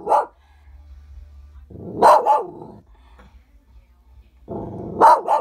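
A small dog growling and barking at the snow outside in three short bouts, each a low rumble rising into sharp barks.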